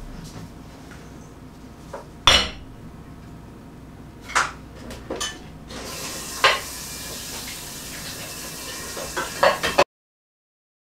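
Dishes and cutlery clinking and clattering as a meal table is cleared: a few sharp knocks of plates and utensils, the loudest about two seconds in. A steady hiss follows for a few seconds after the middle.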